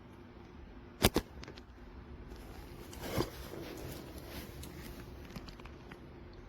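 Handling noise: two sharp knocks about a second in, then a brief rustle and light scattered rustling.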